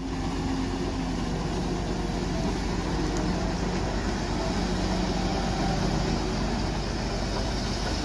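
Hyundai wheeled excavator's diesel engine running steadily as it digs and loads soil, an even mechanical drone with no sharp knocks or revving.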